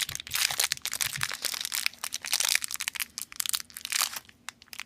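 Plastic or foil packaging crinkling and crackling as it is handled, densest in the first couple of seconds and thinning out towards the end.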